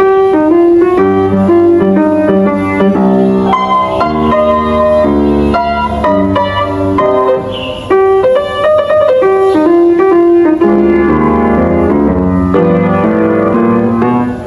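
Upright piano being played with both hands: a continuous melody of single notes over lower accompanying notes, with no pauses.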